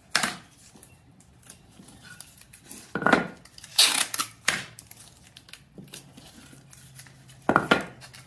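Clear Scotch tape being pulled off the roll and torn off in strips, in several short bursts.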